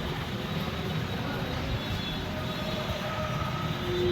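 Steady low rumble of background noise, with a few faint short tones over it.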